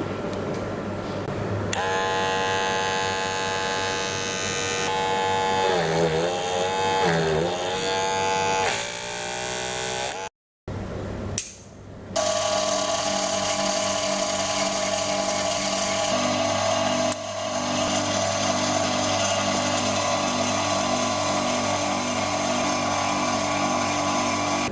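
Small electric motor running with a steady whine, its pitch dipping briefly twice as it is loaded during blade sharpening. It cuts out about ten seconds in, then runs steadily again.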